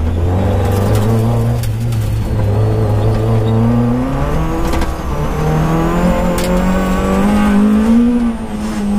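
Peugeot 205 GTI rally car's four-cylinder engine running hard, heard from inside the cabin. The engine note changes step about four seconds in, climbs steadily again, then falls away near the end. A few sharp knocks come through from the car.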